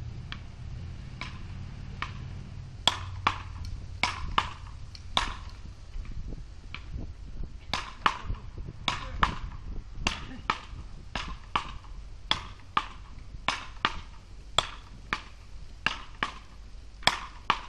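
Wooden beach paddles striking a small ball in a rally: a string of sharp pocks, few at first, then about two a second, some much louder than others. A low rumble sits underneath for the first few seconds.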